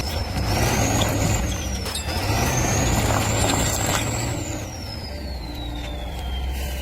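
Heavy vehicle engine running with a deep rumble and a high whistle. The whistle climbs in pitch over the first few seconds, holds, then falls away over the last couple of seconds.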